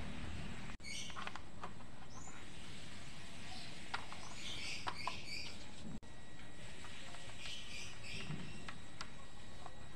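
Light plastic clicks of knobs and fader caps being pressed onto an audio mixer's control shafts, with a few short bursts of faint high chirping over steady background hiss.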